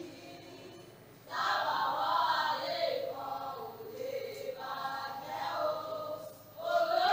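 A group of voices singing together in held, wavering phrases, starting about a second in, with a short break near the end.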